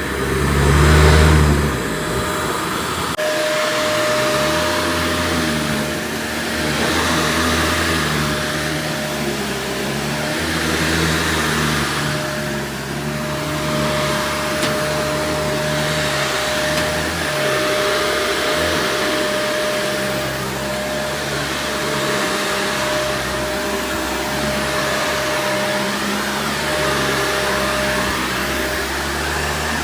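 Shark AZ4002 vacuum cleaner running, its airflow swelling and easing every couple of seconds. A brief louder low rumble comes about a second in, and a steady whine sets in about three seconds in.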